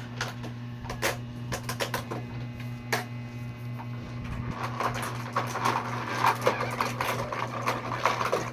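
A hamster nibbling and crunching a biscuit: rapid, irregular little crunches and clicks, which grow denser about halfway through, over a steady low hum.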